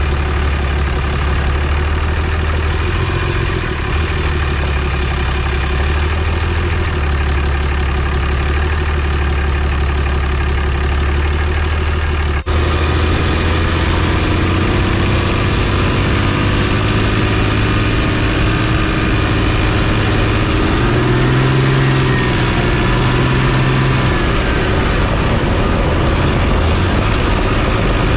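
A pickup truck's engine running with a steady low hum. After a brief break about halfway through, a high thin whine slowly rises in pitch.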